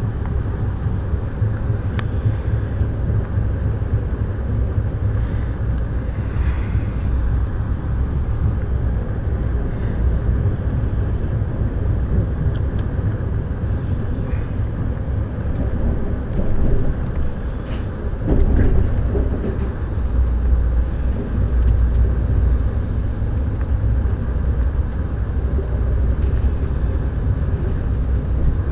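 Steady low rumble of an Amtrak Superliner passenger car rolling along the track, heard from inside the coach, with a few faint clicks. The rumble swells briefly about two-thirds of the way in.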